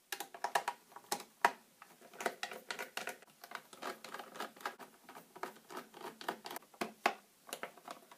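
Small Phillips screwdriver backing screws out of a Venom Pro-2 charger's plastic case: a steady run of scratchy clicks and ticks, several a second, with a few sharper clicks.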